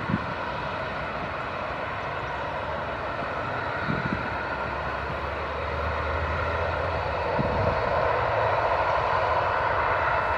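Boeing 737-800's CFM56 jet engines running on the ground: a steady whining hiss that grows louder in the second half. A few brief low thumps sound over it.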